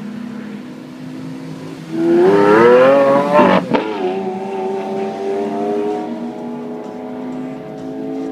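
Lamborghini Aventador's V12 engine accelerating hard from a low idle: about two seconds in the engine note jumps loud and climbs in pitch, breaks with a short crack at an upshift about a second and a half later, then holds a steadier, lower note that grows quieter as the car drives away.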